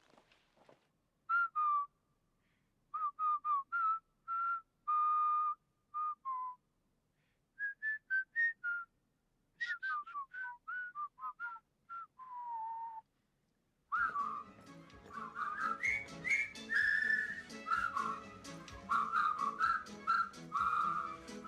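A person whistling a tune in short phrases of clear notes, some sliding down in pitch. About two thirds of the way in, a dense backing with many sharp clicks comes in under the whistling, which carries on.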